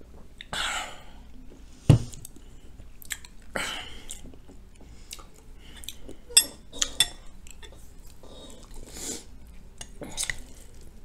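A sip from a ceramic mug, then the mug set down on the table with a sharp knock about two seconds in. After that a metal spoon clinks and scrapes against a glass bowl in scattered sharp clicks, with some chewing between.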